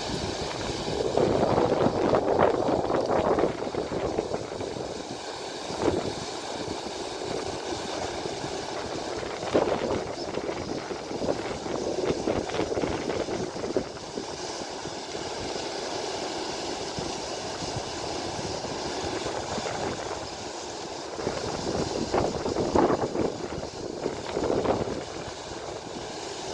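Steady rush of river water pouring over a weir, swelling louder for a few seconds near the start and again near the end.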